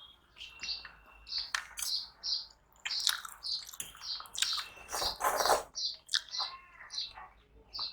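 A small bird chirping over and over, short high chirps about two a second. Under it are close-up crunching and chewing sounds of someone eating fried potatoes, loudest about five seconds in.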